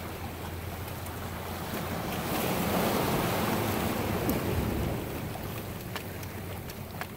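Surf washing against shoreline rocks, swelling louder for a couple of seconds midway as a wave breaks, with wind rumbling on the microphone. A few light ticks near the end.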